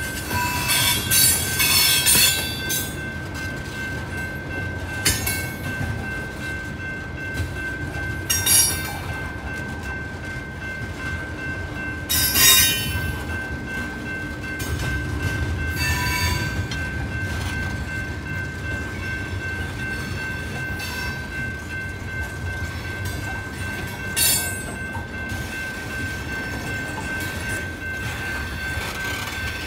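Loaded freight train of coal hopper cars rolling slowly past, with a low rumble and a steady high squeal from the wheels on the rails. Brief, louder screeches or clanks break in every few seconds.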